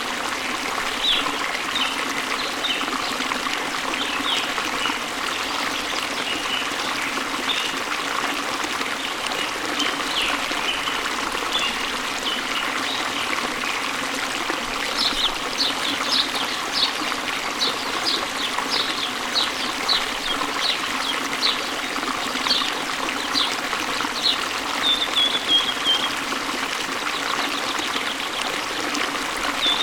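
Waterfall and stream water running steadily, with birds chirping over it. From about halfway, a bird gives a run of sharp, repeated chirps, about two a second, ending in a short falling trill.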